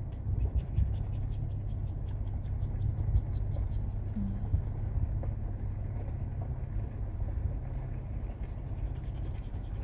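Steady low rumble of a truck's engine and tyres heard from inside the cab while driving, with faint scattered ticks and rattles.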